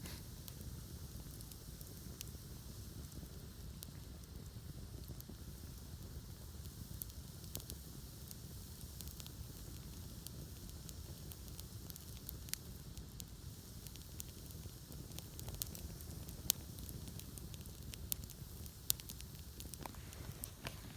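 Campfire of burning wood crackling, with scattered sharp pops and a few louder snaps in the second half, over a low steady rumble.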